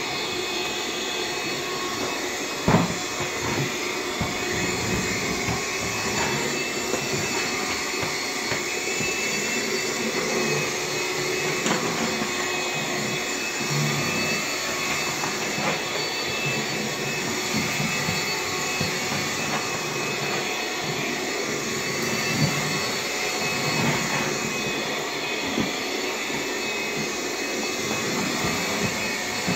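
Bissell PowerGlide cordless stick vacuum running steadily on low power with the brush roll off, with a thin high tone over the motor noise, as it is pushed over hard floor. A single sharp knock comes about three seconds in.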